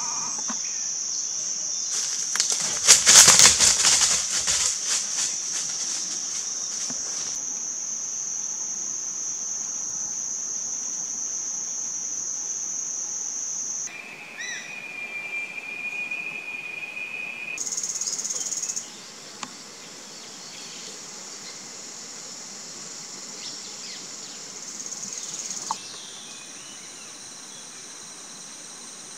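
Forest insects droning in a steady high-pitched chorus, which shifts in pitch and loudness a few times. A few seconds in there is a loud, crackling rustle through leaves and brush for about three seconds. Midway a second, lower steady buzz joins for a few seconds.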